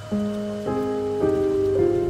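Slow, gentle solo piano music, a new note or chord struck about every half second, over a steady rain ambience.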